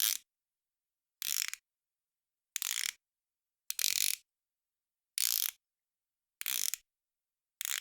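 Ratchet screwdriver twisting, its pawl clicking in short rapid runs about once a second, seven in all, with silence between them.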